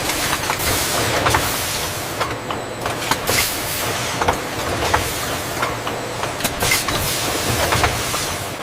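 Factory machinery running steadily, with frequent irregular clinks and clanks.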